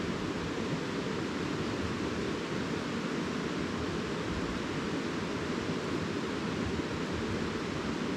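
Steady rushing of river water, an even noise with no breaks.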